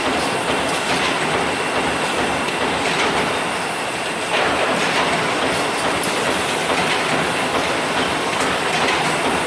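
Automated freezer-bag making machine running, a steady dense machine noise with repeated ticks; it dips slightly, then steps back up about four and a half seconds in.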